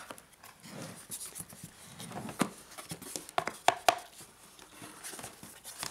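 Hands opening a small cardboard camera box: cardboard flaps and the inner tray scraping and rustling, with a few sharp taps and clicks between about two and four seconds in.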